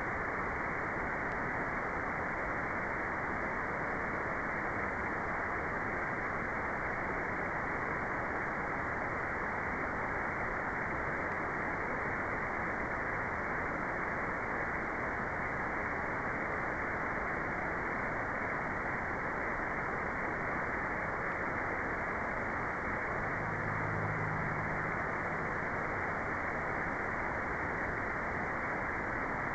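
Steady white noise: an even, unbroken hiss, muffled, with nothing above the middle of the pitch range. A faint low hum sits under it for about two seconds near the end.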